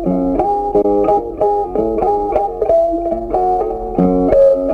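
Background music: a quick melody of plucked notes, several a second, over lower bass notes.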